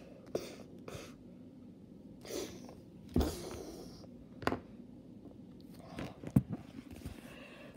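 Scattered soft handling noises close to a phone microphone: light clicks, taps and rustles, with one louder knock about three seconds in.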